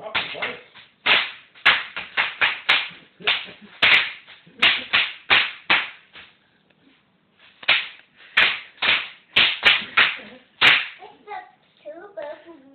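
Bubble wrap popping under a toddler's feet as he steps and stomps on it: quick runs of loud, sharp pops, a pause of about a second and a half around the middle, then another run.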